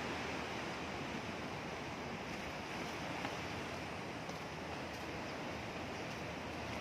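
Steady rushing noise of wind and sea, even throughout with no distinct events.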